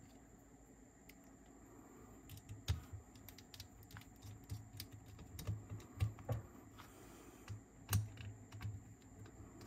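Light, irregular clicks and small knocks of hand work on a cassette tape transport: a small screwdriver, screws and metal and plastic parts being handled on a workbench, starting about two seconds in.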